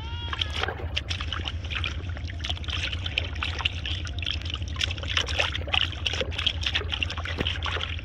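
Live carp thrashing in a plastic tub of water, a quick run of splashes and sloshing with hands moving among them.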